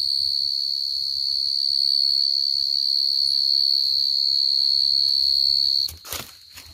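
Field cricket (dế mèn) singing a loud, steady high-pitched song that cuts off suddenly about six seconds in, when the cricket is disturbed as a hand reaches to grab it; a few short knocks and rustles in the litter follow.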